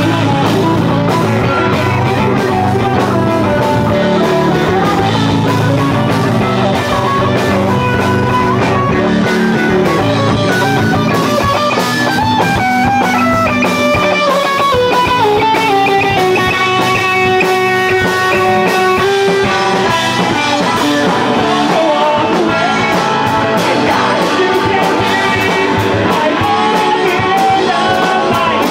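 Live rock band playing loud: electric guitars, bass and drum kit, with a melodic line falling through the middle of the passage and then holding notes.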